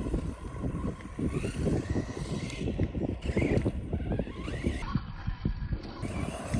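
Strong wind buffeting on the microphone, with the high whine of a DHK Maximus 1/8-scale RC truck's brushless motor rising and falling in pitch as the truck speeds up and slows on a dirt road.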